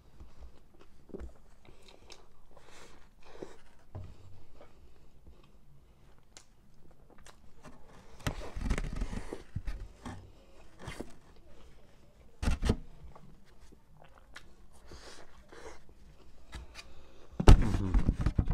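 Close-miked chewing and mouth sounds of a person eating a carne asada torta, with scattered small smacks and a few louder bites. Near the end there is a louder knock and rustle as the sandwich is put down in a styrofoam container.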